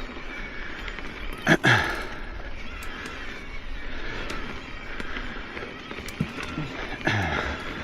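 Ibis Oso electric mountain bike riding over a dirt trail: a steady rush of tyre and drivetrain noise with light rattles and clicks. Two loud jolts come about a second and a half in and near the end, each with a short falling low tone after it.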